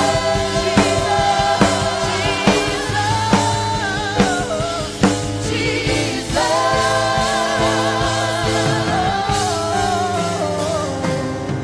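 Live gospel worship music: singers hold long notes with vibrato over sustained band chords. A drum beat about every 0.8 s stops about five seconds in, and the music thins out near the end.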